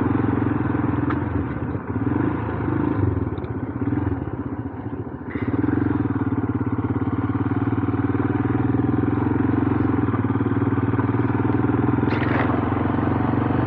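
Royal Enfield Himalayan's single-cylinder engine running steadily at idle after a cold-weather bump start and warm-up. It goes quieter and uneven for a few seconds near the start, then settles back to an even beat, with a short click near the end.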